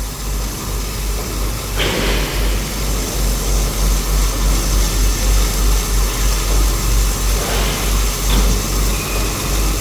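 Gantry double-wire submerged arc welding machine running steadily with a strong low hum and a noisy hiss, with two brief louder swells of noise about two seconds in and near the end.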